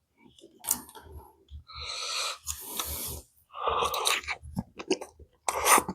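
A person chewing crunchy food close to the microphone, with wet crunches and soft low thumps of the jaw a few times a second.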